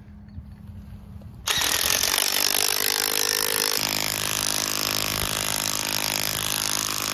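DeWalt 20V MAX cordless impact wrench starting about a second and a half in and running continuously as it drives a 1-inch cast aluminum screw-in aircraft tie-down anchor into the turf. About four seconds in its sound settles into a steady hum.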